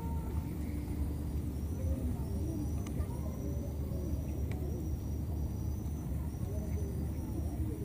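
Outdoor background with a steady low rumble, a faint, evenly pulsing high chirp above it, and scattered short, soft calls.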